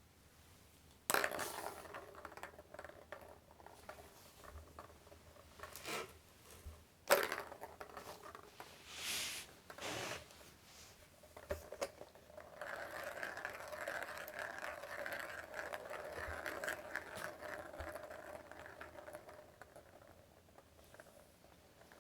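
A cat playing with toys: two sharp knocks, a short rustle, then several seconds of steady scraping.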